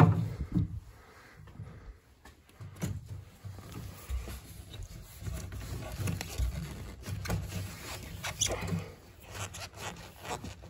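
Scraping and rustling as copper refrigerant line set and tubing are fed through a hole in drywall, with scattered light taps and knocks.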